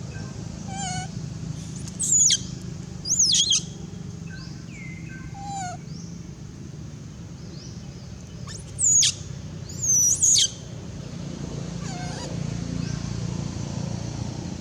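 Shrill, high-pitched cries of an abandoned baby macaque calling loudly, a pair of squeals about two to three seconds in and another pair about nine to ten seconds in, with fainter chirps between.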